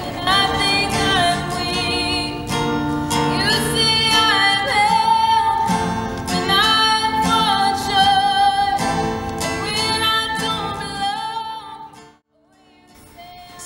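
A woman singing while strumming an acoustic guitar; the song fades out near the end.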